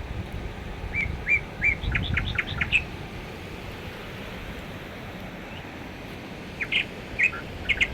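Wild birds chirping: a quick run of short, high notes about a second in and another cluster near the end, over a low rumbling background.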